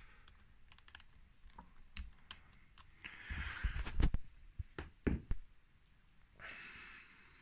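Scattered light clicks and taps of handling, with sharper knocks about two, four and five seconds in and short stretches of rustling, as hands work at a small motorcycle's carburettor and move the phone camera.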